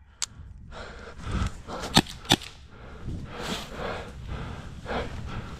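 Heavy breathing of a player crouched behind cover, over rustling of dry leaves and gear, with two sharp cracks close together about two seconds in.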